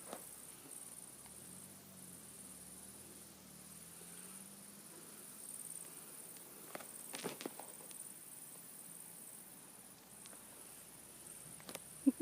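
Insects chirring steadily and faintly in a high, continuous drone, with a few short knocks about seven seconds in and again just before the end.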